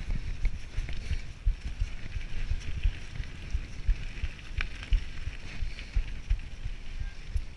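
Mountain bike riding fast down a rocky singletrack: tyres crunching and rattling over stones and the bike jolting, heard as an irregular low rumble of thuds over a steady hiss, with a few sharp knocks about five seconds in.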